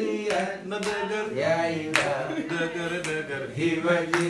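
A voice singing a chant-like song with a steady melodic line, with a couple of sharp hits, one about two seconds in and one near the end.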